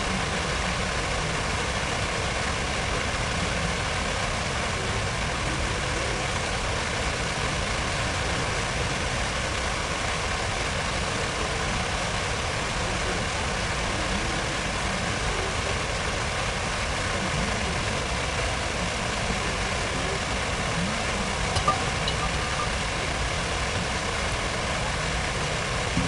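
Steady city ambience: a continuous wash of noise over a low rumble of traffic, with one faint click about 22 seconds in.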